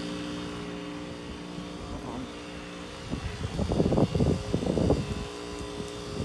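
Heat pump outdoor units humming steadily while a Goodman heat pump runs an interval defrost cycle. A lower hum tone drops out about three seconds in, followed by a couple of seconds of louder, irregular noise.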